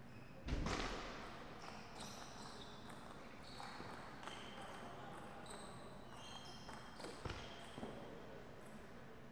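Table tennis rally sounds in a hall. A loud sudden burst about half a second in is followed by short squeaks of shoes on the sports floor, and a few sharp clicks of the plastic ball on bat and table near the end.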